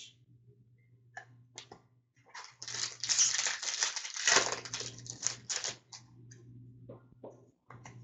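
Foil wrapper of a Fleer Ultra hockey card pack torn open and crinkling for about three seconds, then a few short clicks and flicks as the cards are handled.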